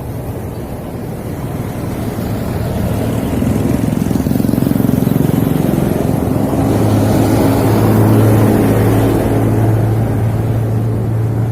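SYM RV1-2 110cc motorcycle engine running under way, with road and wind noise; it grows louder over the first few seconds, then holds a steady drone.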